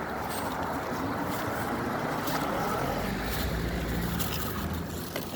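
Wind buffeting the microphone: irregular low rumbling gusts over a steady rush of outdoor noise, with a few faint clicks.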